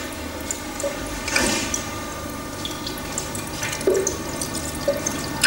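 Liquid trickling from a glass jar through a funnel into a glass side-arm filter flask, with faint glass clicks.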